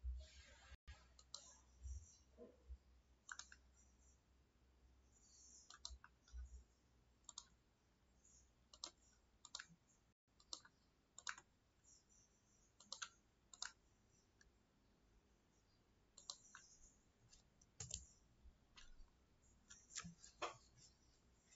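Faint computer mouse clicks, coming singly and in quick pairs at irregular intervals as objects are selected.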